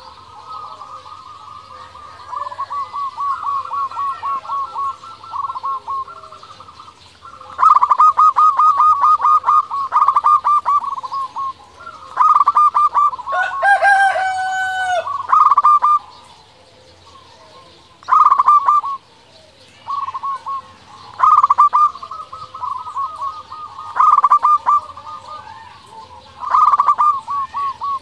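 Zebra dove (perkutut) cooing: phrases of fast, rapidly pulsed coos, each one to a few seconds long, repeated with short pauses between. Around the middle a separate, longer call with a sliding pitch sounds over it.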